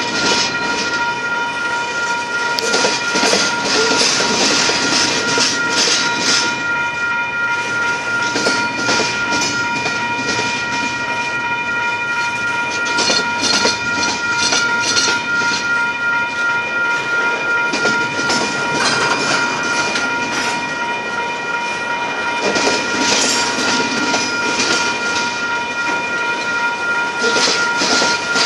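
Double-stack container cars rolling past at close range: wheels clattering over the rail joints under a steady high squeal made of several held tones.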